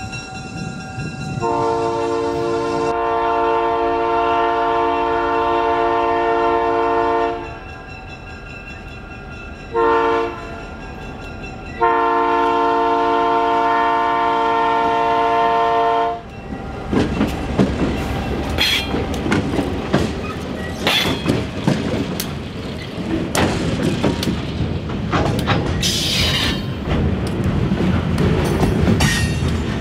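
Ashland Railway locomotive 2023's air horn sounding a chord in a long blast, a short one and another long blast, the warning for a grade crossing. From about halfway on, the freight cars roll past with wheel clatter and sharp clanks.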